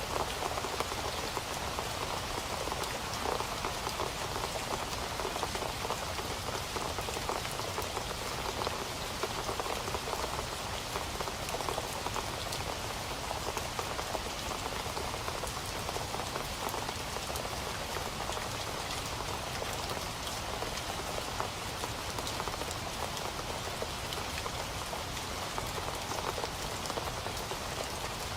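Steady rain falling, a dense, even hiss of countless small drop impacts.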